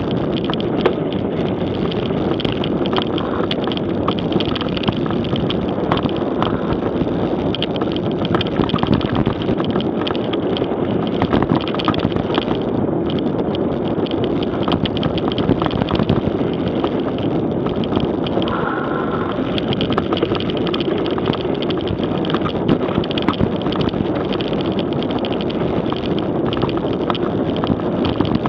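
Mountain bike rolling fast down a dirt trail: a steady rush of wind on the action camera's microphone mixed with tyre noise on the ground and frequent rattles and clicks from the bike.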